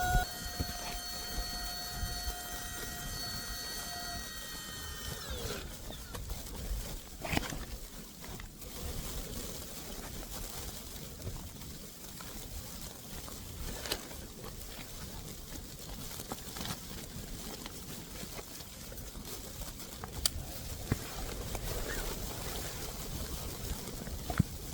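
Blizzard wind rushing steadily over the microphone, with a few sharp taps or knocks scattered through it. At the start a chord of steady tones fades out within the first five seconds.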